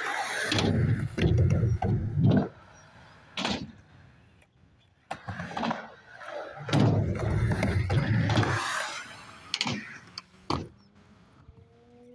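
Skateboard wheels rolling in two runs of a few seconds each, with a few sharp clacks of the board between and after them.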